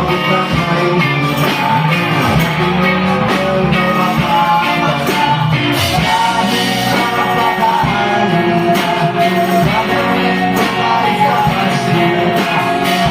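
Live rock band playing loudly, with a singer over electric guitars.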